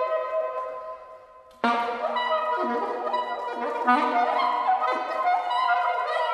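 Live ensemble music with soprano saxophone among the winds: held notes fade away in the first second and a half, then the whole group comes in suddenly with a dense, sustained chord and low notes beneath.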